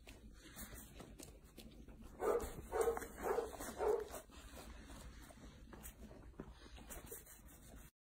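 Golden retriever whimpering, a quick run of short whines about two seconds in.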